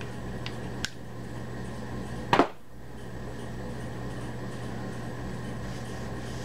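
A few light metal clicks, then a single sharp metal clunk about two and a half seconds in, as parts of a Clausing lathe apron are handled and fitted, over a steady low shop hum.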